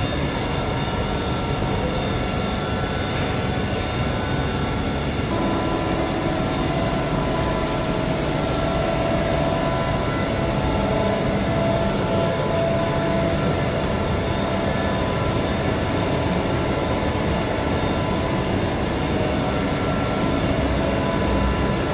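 Steady machine hum of a powered-up CNC turning centre, with several steady whining tones over it; a further tone comes in about five seconds in.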